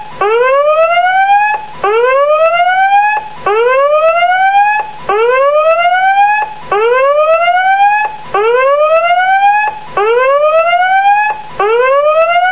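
Electronic end-of-countdown alarm: a whooping tone that rises in pitch over about a second and a half, then breaks off and starts again, about eight times in a row.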